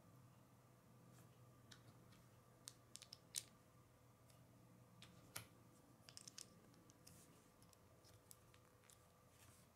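Faint, scattered clicks and taps of small plastic Lego pieces being turned over in the fingers, a few at a time, over a low steady hum.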